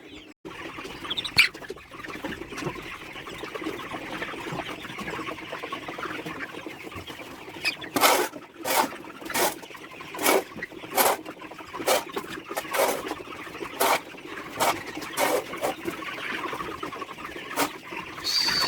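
A flock of chickens in a poultry house chattering and clucking steadily. From about eight seconds in, a run of regular scraping strokes from cleaning the floor is heard. A few high peeps come near the end.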